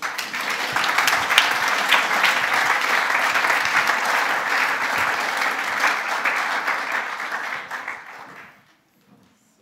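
Audience applauding, a dense patter of many hands clapping that dies away about eight and a half seconds in.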